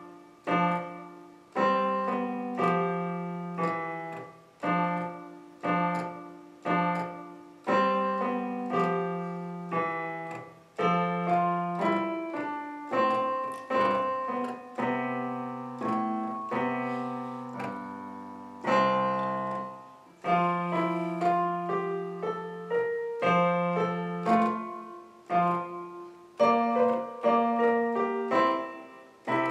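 Roland portable digital keyboard played on its piano voice: a written piece of melody over chords, each note struck and then fading, in short repeated phrases.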